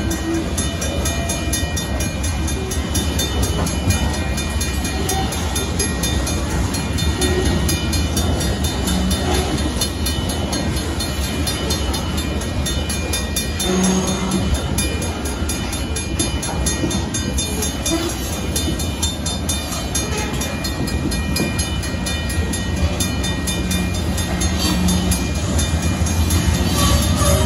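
Loaded gravel hopper cars of a freight train rolling steadily past at a grade crossing, their steel wheels clacking over the rail joints in a continuous low rumble. The crossing's warning bell rings rapidly over it.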